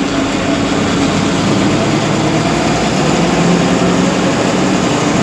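Bus engine running steadily while the bus drives slowly, heard from inside the driver's cab.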